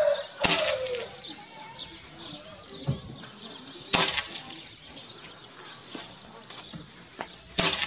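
Three shots from a Gamo CFR 4.5 mm (.177) spring-piston air rifle, each a short sharp report, coming about three and a half seconds apart.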